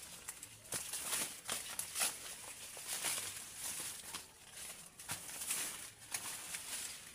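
Maize leaves and stalks rustling and crackling in uneven bursts as they are pushed aside and bent over by hand, with a few sharper crackles, the loudest about two seconds in.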